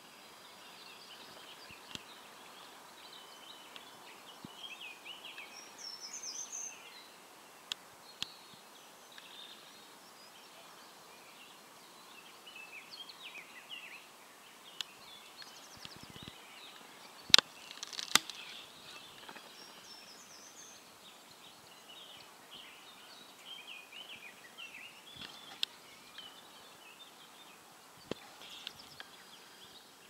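Birds chirping and singing outdoors, many short high calls scattered throughout over a faint steady hiss. Two sharp clicks, a little past halfway, are the loudest sounds.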